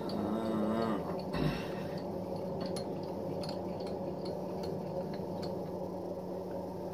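Faint regular ticking, a couple of ticks a second, over a steady hum as the Jet JMD-2S milling machine's table is cranked along under a dial test indicator. A brief hummed voice comes in the first second and a single low knock about a second and a half in.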